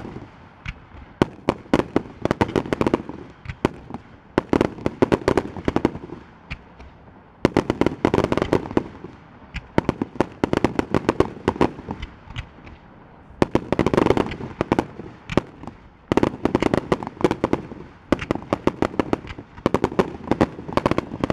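Aerial fireworks display: shells bursting in rapid clusters of sharp bangs and pops, with short lulls between volleys.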